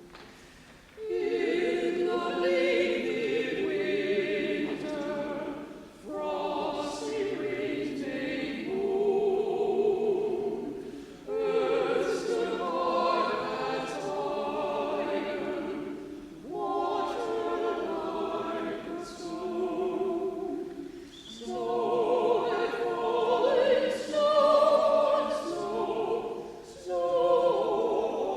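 Choir singing a sacred piece in phrases a few seconds long, with short breaks between them, starting about a second in.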